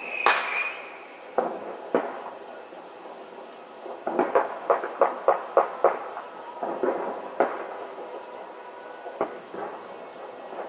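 Fireworks and other sharp bangs going off at midnight. A whistling firework falls in pitch and ends in a loud bang right at the start. Single reports follow, then a quick run of about nine cracks around four to six seconds in, and a few more scattered bangs.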